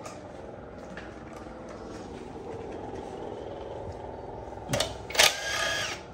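A steady mechanical hum. Near the end come two metal knocks, the second followed by a brief bright ringing, as loose metal engine parts are handled during a teardown.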